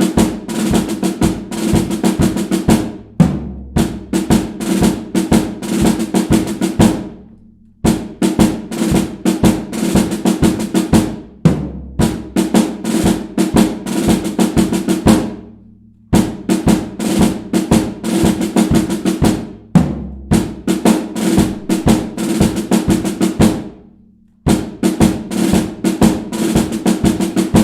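Snare drum cadences: fast rolls and rhythmic snare strokes with bass drum beneath, played in phrases of about four to eight seconds with short breaks between them.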